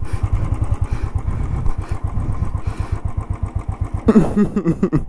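Motorcycle engine running at low revs with an even, rapid exhaust beat.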